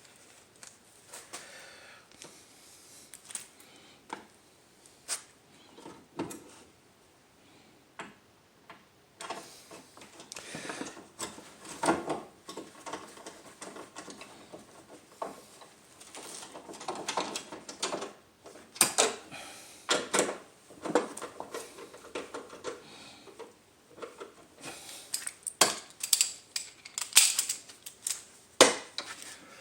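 Hand tools working the hood latch's bolts, which are being started back in loosely: irregular metal clicks, knocks and short scrapes, quieter for a moment near the middle and busier after that.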